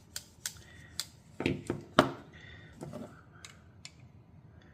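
Irregular clicks and knocks of Leatherman Signal clone multitools being handled, their parts clicking and tapping against each other, about eight in all, the loudest about two seconds in, with brief scraping in between.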